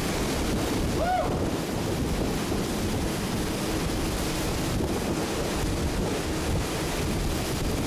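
Category 4 hurricane wind blowing hard and steadily, buffeting the microphone in a constant rushing noise. A brief rising-and-falling tone comes through about a second in.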